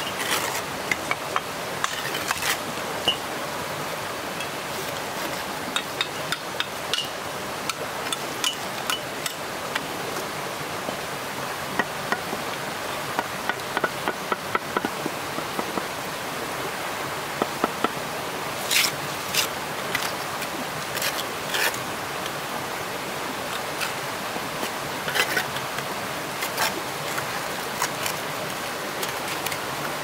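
Steady rush of running water, with irregular sharp knocks and taps throughout and a run of louder ones a little past halfway.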